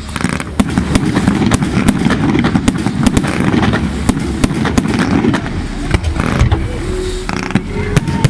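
Aerial fireworks display: a rapid, continuous run of shell launches and bursts, sharp bangs and cracks several times a second over a dense low rumble.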